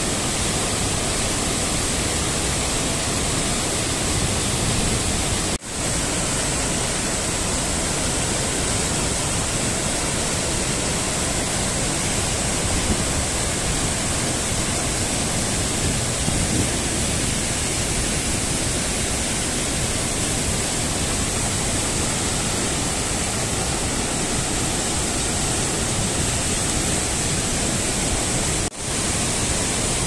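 Waterfall's steady rush of falling water. The sound drops out briefly twice, about five seconds in and near the end.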